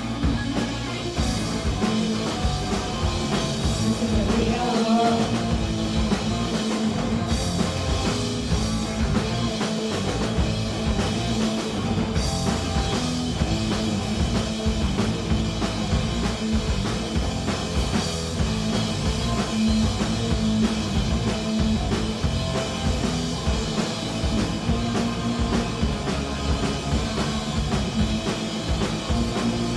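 Punk rock band playing live: loud, distorted guitars, bass and a pounding drum kit, with a voice singing at times.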